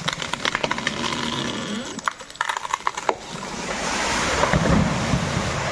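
Felled merbau tree breaking and coming down: a run of sharp cracking snaps as the wood gives way at the hinge, then a swelling rush of branches and foliage as the crown falls and lands about four to five seconds in.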